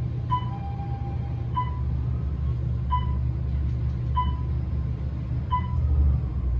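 Otis traction elevator car running up at speed, a steady low rumble in the cab. A short electronic beep sounds five times, about every second and a third, in step with each floor passed.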